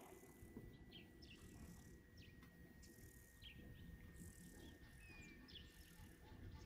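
Faint bush ambience close to silence: insects buzzing in pulses that come and go every second or two, with short, scattered bird chirps.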